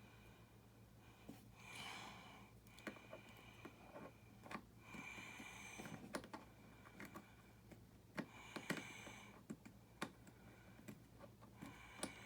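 Faint, scattered clicks and taps of small plastic building-brick parts being handled. A soft breath comes about every three to four seconds.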